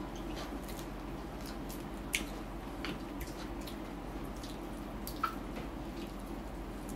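Close-up eating sounds from fried chicken and rice eaten by hand: soft chewing with scattered short, wet mouth clicks, the sharpest about two seconds in and about five seconds in, over a steady low hum.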